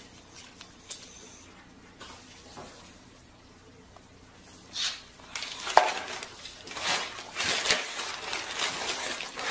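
Cardboard box crinkling and crackling as a bulldog climbs about in it, its paws and mouth working at the torn flaps. Quiet with a few small clicks at first, then a busy run of crackles and rustles from about halfway through.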